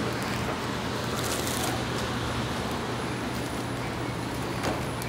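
Steady low hum and noise of an AirTrain JFK car and platform as passengers walk out through the doors, with light knocks near the end.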